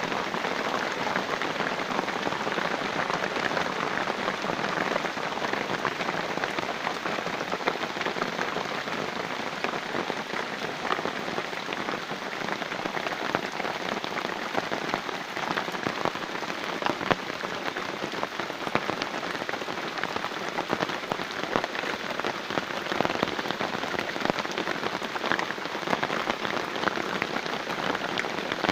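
Heavy rain falling steadily on a rubber tree plantation: an even hiss dotted with many sharp ticks of single drops.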